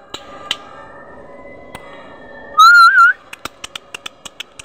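A person whistles once to call puppies: a short, loud whistle that rises and then wavers, about half a second long, about two and a half seconds in. It is followed by a quick run of light clicks.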